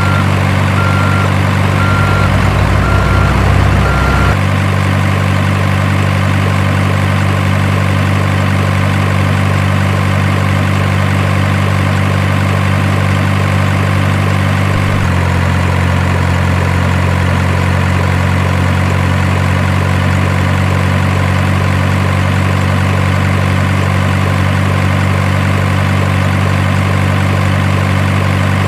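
Steady idling truck-engine drone, with a louder, deeper rumble from about two to four seconds and a slight change in pitch about halfway through.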